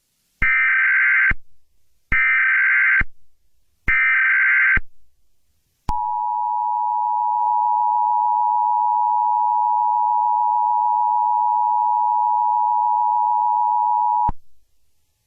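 Emergency Alert System tones. First come three raspy bursts of SAME header data, each just under a second with a short gap between them. Then comes the two-tone attention signal, a steady dual-pitched tone held for about eight seconds that cuts off suddenly. It is the alarm that announces an emergency alert message is about to be read.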